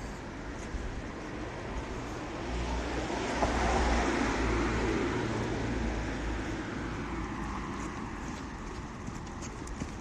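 A vehicle passing on the street: a broad traffic rumble that swells over a couple of seconds, peaks about four seconds in, then slowly fades away.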